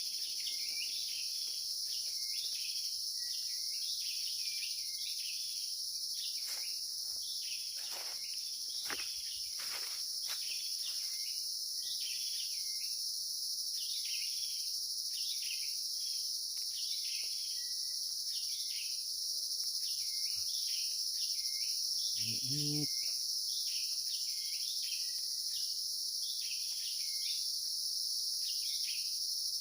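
Forest ambience: insects droning steadily at a high pitch, with a short chirping call repeating about once a second over it. A few brief noises come about eight to eleven seconds in.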